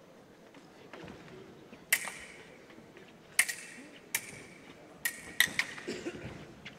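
Steel foil blades clashing: about five sharp metallic clicks, each with a brief ring, coming in quick exchanges over three or four seconds.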